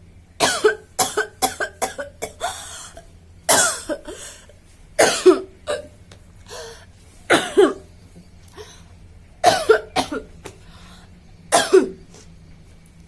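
A woman coughing in fits: a quick run of short coughs near the start, then single coughs or pairs about every two seconds. The coughing is acted, not from a real cough.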